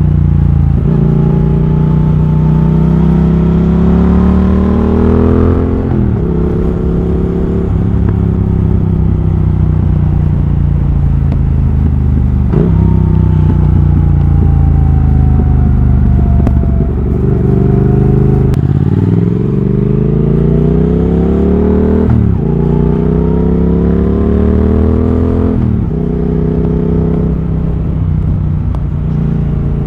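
Triumph Thruxton RS 1200 cc parallel-twin engine through a British Customs GP slip-on exhaust with X-pipe, heard onboard while riding. The revs climb and then drop sharply at gear changes several times, with a long stretch in the middle where the revs fall steadily as the bike slows.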